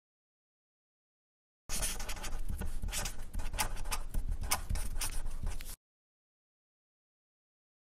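Marker pen writing, a quick run of scratchy strokes lasting about four seconds. Dead silence comes before the writing and after it.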